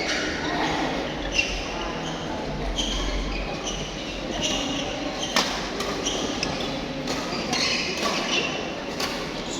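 Badminton rally on an indoor court: shoes squeaking on the court floor, with two sharp racket hits on the shuttlecock, about a second and a half in and again about five and a half seconds in.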